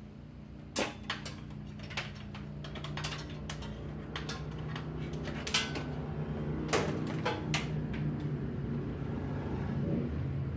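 Lock-strip tool working a hard plastic lock strip into a rubber window gasket, giving irregular sharp clicks and snaps, over a steady low hum.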